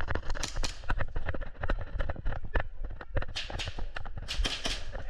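Rapid, irregular pops and clicks of airsoft gas pistol fire mixed with running footsteps, with hissy bursts of shots a little past halfway.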